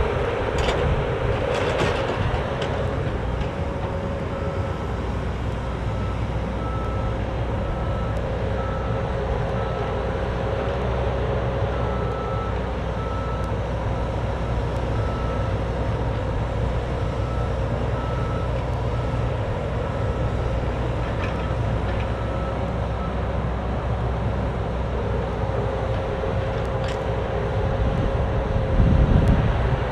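Cat 304D mini excavator's diesel engine running steadily with hydraulic work, and its travel alarm beeping at a steady pace for much of the time while the machine tracks. A few clanks come early, and the engine grows louder briefly near the end.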